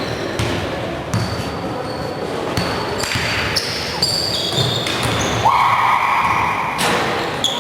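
Basketball bounced on a gym court during play, with sneakers squeaking on the floor in short high chirps and one longer, louder squeak a little past halfway.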